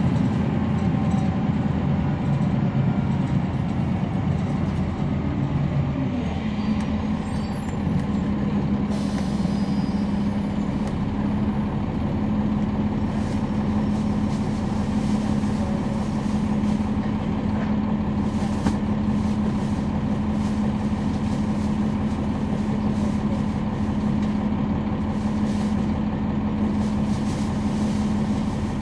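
A NABI 40-foot transit bus's Cummins ISL9 diesel engine and ZF Ecolife automatic transmission, heard from on board while running steadily. The engine note changes about six seconds in and then holds a steady drone. A faint high whistle comes in briefly around the middle.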